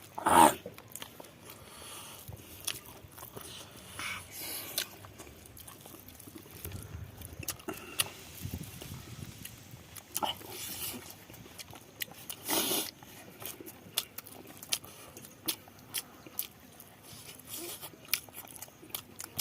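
A person eating a curry and rice meal close to the microphone: chewing and mouth sounds with many scattered small clicks, and a few louder brief bursts of sound.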